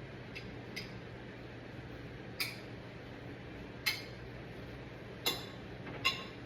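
A utensil clinking against a ramekin, five or six sharp, briefly ringing taps at uneven intervals, as rice is packed into it to be moulded.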